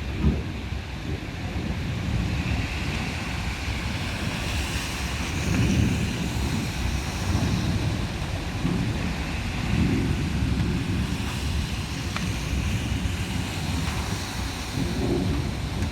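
Squall wind during a thunderstorm buffeting the microphone, a low rumble that surges in gusts several times over a steady hiss of heavy rain.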